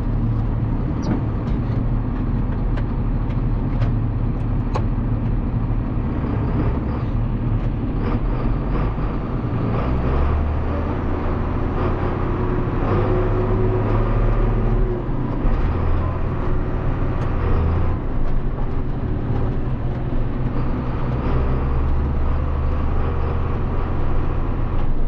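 John Deere farm tractor's diesel engine running steadily under way. Its low drone shifts in pitch and load a few times.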